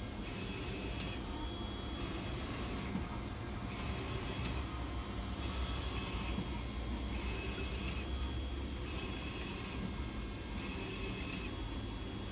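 UV flatbed printer printing on a plywood sheet: the print-head carriage sweeps back and forth in passes about a second long, a high whine coming and going with each pass over a steady machine hum.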